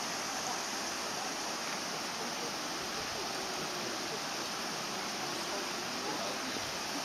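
Steady, even outdoor background hiss, with no distinct sounds standing out.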